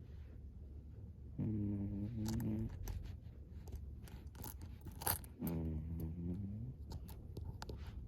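A 19-year-old cat snoring in its sleep: two pitched snores, each a little over a second long, about four seconds apart, with faint scattered clicks between them.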